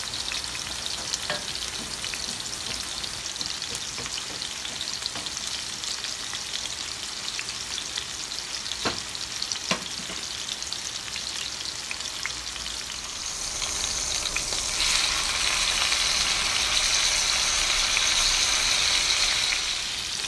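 Two seasoned ribeye steaks searing in a hot cast-iron skillet: a steady sizzle that grows louder about two-thirds of the way through, with two light clicks a little under halfway through.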